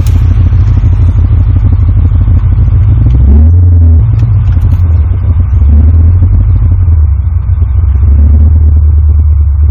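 Holden Calais V8 engine driving along with a loud, steady low rumble; its pitch rises briefly three times as the revs change.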